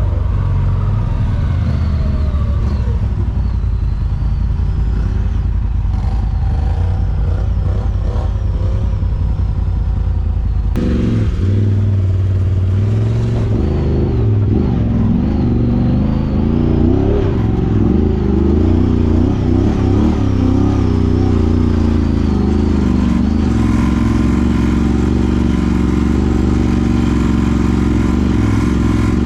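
Side-by-side UTV engine running and revving on a rough trail, its pitch wavering up and down. The sound changes abruptly about eleven seconds in.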